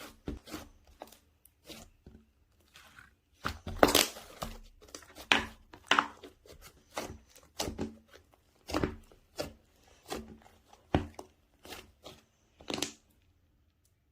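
Ice cream slime being squeezed, poked and stretched by hand, giving irregular sticky squishes and crackling pops. The sounds stop about a second before the end.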